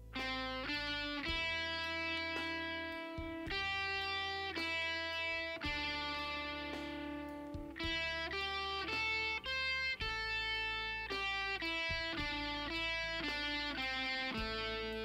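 Electric guitar, a Siggi Braun Telecaster-style, played as a single-note lead line and recorded direct through a Line 6 HX Stomp modelling a Soldano amp. Mostly quick picked notes, with a few held for a second or two.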